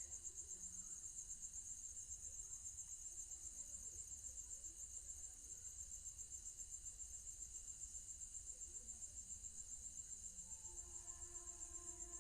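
A cricket trilling steadily, a faint, high, rapid pulsing that never pauses. About ten seconds in, a faint steady hum of a few low tones joins it.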